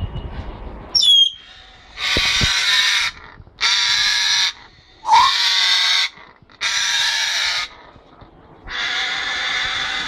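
Congo African grey parrot giving a short falling whistle, then five harsh, loud screeches of about a second each, evenly spaced, with a brief rising whistle between the second and third.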